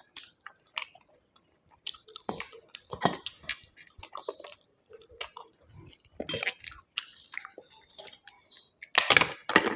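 A person chewing food: irregular chewing and mouth sounds with short clicks, growing louder near the end.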